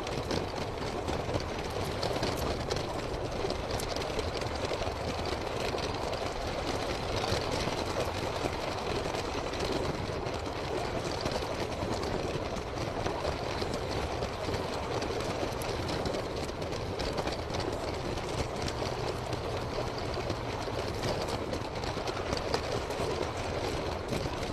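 LEGO train's motor and plastic wheels running along plastic LEGO track, heard up close from on board: a steady rattling whir with many fine clicks.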